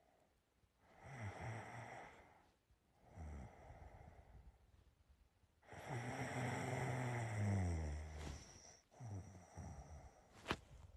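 A sleeping person snoring: a few rough breaths, then one long, low snore about six seconds in, and a sharp click near the end.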